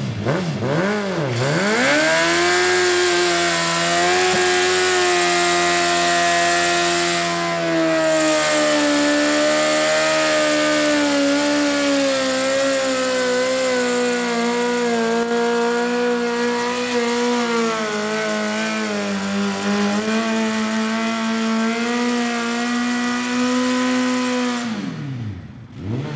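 Motorcycle engine blipped a couple of times, then held at high revs for over twenty seconds in a burnout, the rear tyre spinning against the ground to wear it down. The revs drop away shortly before the end.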